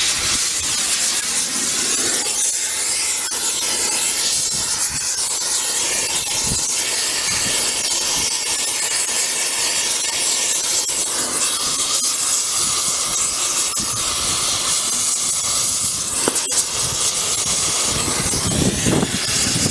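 Long-handled gas torch flame hissing steadily as it heats the rusted cylinder-cover bolts of a steam locomotive to free them.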